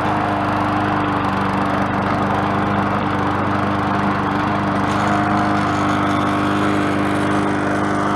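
MTD Yard Machines walk-behind mower's small single-cylinder engine running at a steady speed with the self-propel drive engaged. The drive is working again now that its belt is back on the transmission.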